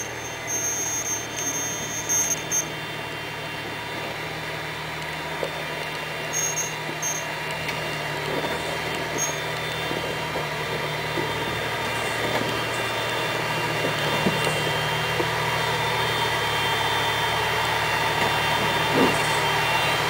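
Jeep Wrangler engine running at low revs as it crawls over rocks toward the listener, growing gradually louder. There are a few short high squeaks in the first few seconds and again a little later.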